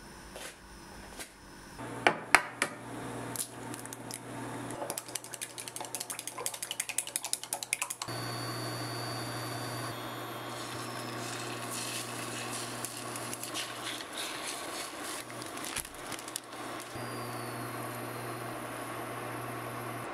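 Kitchen utensil sounds: a few sharp knocks, then a fast run of clicking like eggs being beaten in a glass jug. From about eight seconds in there is a steady hiss with a low hum, as beaten egg cooks in a flat pan.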